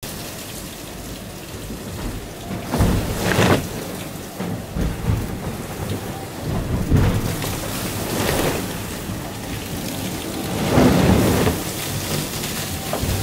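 Sea water and spray rushing against the hull and coachroof of an IMOCA 60 racing yacht under way, heard from inside the cabin: a constant wash of noise with heavier surges every couple of seconds as waves hit the boat.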